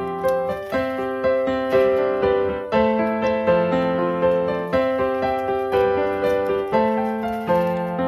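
Background music: a piano or electric piano playing a steady run of notes, each struck note fading away.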